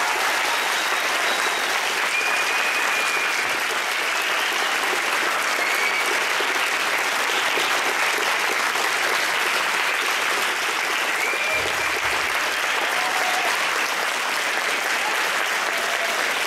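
A large audience of students applauding steadily, with a few faint short high calls over the clapping.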